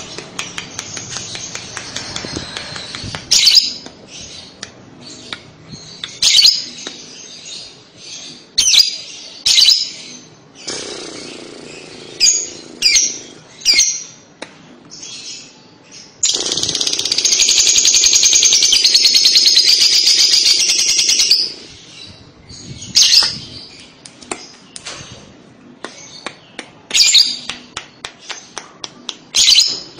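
Fischer's lovebird giving short, sharp high chirps, then, about sixteen seconds in, a loud, fast rattling trill that runs unbroken for about five seconds: the long 'kekekan' song that lovebird keepers prize. After the trill, more scattered chirps follow.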